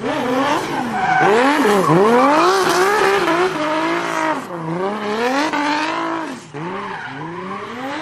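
BMW E46 drift car's engine revving hard, the pitch sweeping up and down every second or so, while the rear tyres spin and screech on the track in a smoky drift.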